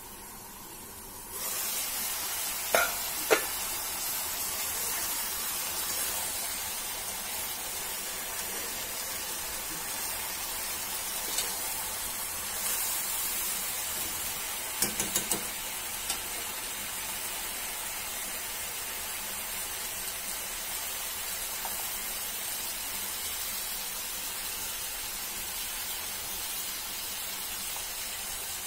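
Chopped vegetables frying in a black iron kadai, a steady sizzle that jumps up about a second in as the pan is uncovered. Two metal knocks follow shortly after, and midway a quick run of taps as a metal spatula stirs against the pan.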